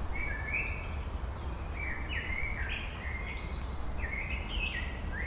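Birds chirping: a string of short, high notes that step up and down in pitch, over a steady low hum.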